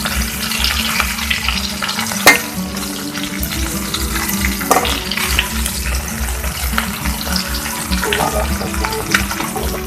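Pieces of rohu fish sizzling and crackling steadily in hot oil in a kadai, just turned over, with two sharp clicks about two and five seconds in.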